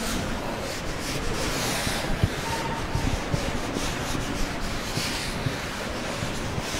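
Blackboard being wiped with a duster: a soft rubbing in repeated strokes, with a few light knocks.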